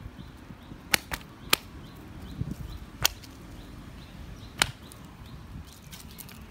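Five sharp, dry clicks, three of them close together about a second in, then one near three seconds and one near four and a half seconds.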